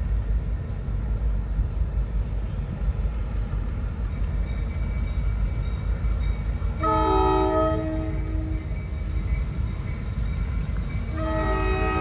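Diesel locomotive horn sounding a chord of several notes: one blast of about two seconds, then a second blast starting near the end, over a steady low rumble.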